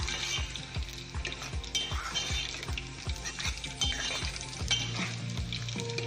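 A spoon stirring macaroni and shredded cheese in a stainless-steel pot on the stove, with scraping and clicking against the pot, over background music with a steady beat.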